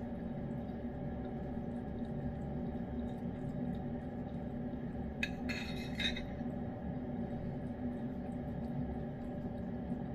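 Steady hum of a running appliance, with a metal spoon scraping and clinking briefly against the food bowl about five seconds in.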